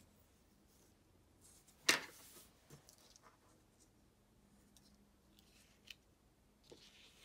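Hands handling a paper planner page and washi tape on a desk: faint rustles and ticks, with one short, sharp crackle about two seconds in and a small click near six seconds.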